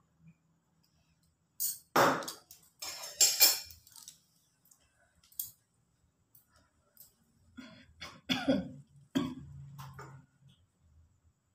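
Dishes and utensils knocking and clinking as they are handled and set down on a kitchen counter, in two clusters of short, sharp sounds with a quiet pause between.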